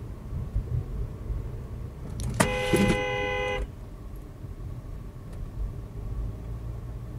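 A car horn gives one steady honk a little over a second long, about two and a half seconds in, over the low rumble of a car driving.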